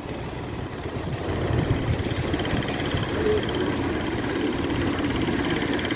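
Steady road and engine rumble heard from inside a moving vehicle, growing a little louder over the first two seconds.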